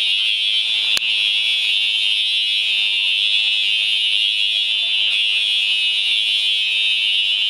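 Building fire alarm sounding continuously, a steady, shrill, unbroken tone, with a brief click about a second in. It is a false alarm, pulled as a prank.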